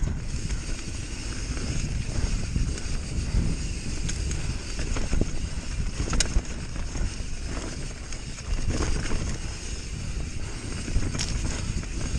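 Wind noise on the camera microphone and a Bird Aeris mountain bike's tyres running over a dirt trail, with occasional sharp knocks and rattles from the bike.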